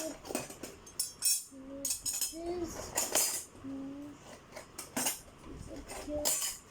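Loose metal construction-kit parts clinking and rattling against each other as they are sorted through by hand, a string of sharp separate clinks.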